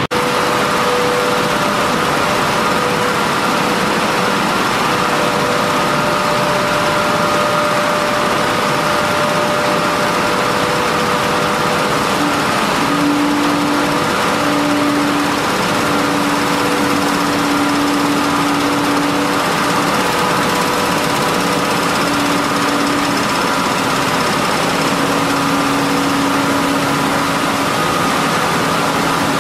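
30-ton-per-day millet milling line running: loud, steady machine noise from its motors and processing machines, with several steady hums. A lower hum comes in about twelve seconds in and drops in and out.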